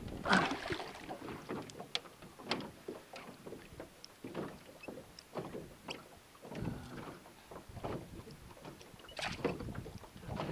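Irregular knocks, clicks and short water noises as a hooked pike is hand-lined up to the side of a small boat, with gear and line handled against the hull.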